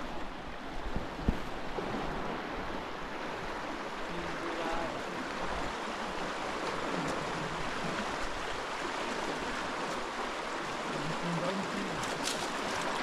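A river rushing steadily, with a sharp knock a little over a second in.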